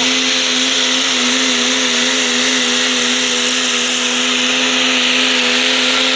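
A Cummins turbo-diesel in a Dodge Ram pulling truck runs at full throttle under the load of a weight-transfer sled. It holds a steady high-revving drone at a constant pitch, with a loud hiss of exhaust and turbo over it.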